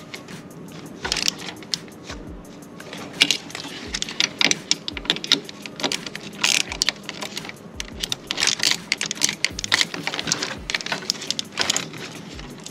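Ratchet wrench clicking in short, irregular runs of sharp clicks as a throttle-body bolt is tightened by hand.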